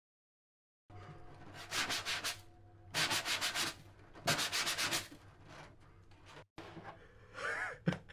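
Rough rubbing strokes: three loud grating strokes about half a second each, with a fast pulsing texture, and quieter rubbing between them. Near the end comes a short squeal that rises and falls, then a sharp click.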